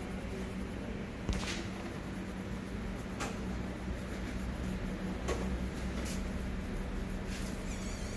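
Fingers scratching the scalp in short strokes, one every second or two, loosening dandruff, over a steady low hum.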